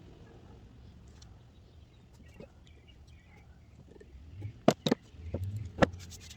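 A handful of sharp metal clicks and knocks in the second half, as the bracket and its freshly greased pin are fitted back onto a Honda Odyssey sliding-door roller assembly.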